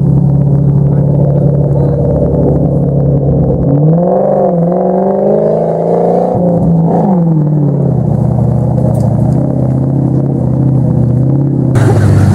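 Range Rover Classic's engine working hard on a muddy climb, running steadily, then revving up and down from about four seconds in as its tyres spin and throw mud, before settling back to a steady pull.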